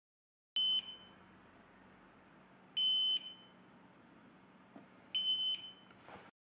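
Buzzer of an Arduino overheating alarm beeping: three short, high-pitched beeps about two seconds apart, the alarm going off because the DHT11 temperature sensor reads too hot.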